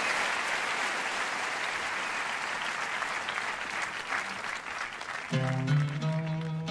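Audience applauding, dying down over the first few seconds; about five seconds in, an oud starts playing, plucked notes ringing out.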